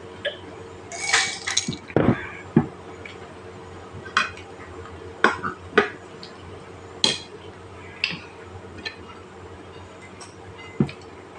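Dishes and eating utensils clinking and tapping on a table during a meal: about a dozen sharp, irregular clinks and light knocks.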